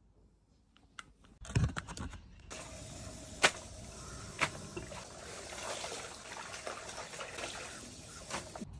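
Water streaming and dripping off handfuls of freshly washed young radish and napa cabbage greens as they are lifted from the wash water into a plastic colander, with a few sharper splashes. It begins about a second and a half in, after near quiet.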